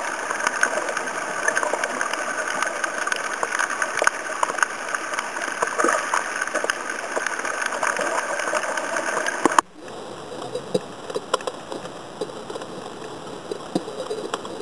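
Underwater noise picked up by a camera held below the surface: a steady wash of water hiss with many scattered clicks and crackles. About ten seconds in, the sound drops abruptly to a quieter level.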